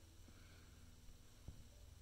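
Near silence: faint room tone with a low steady hum, and a single soft click about one and a half seconds in.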